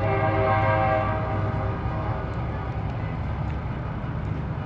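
Semi-truck air horn blowing a chord of several tones for about two seconds, then fading out, over the steady low rumble of diesel truck engines rolling in.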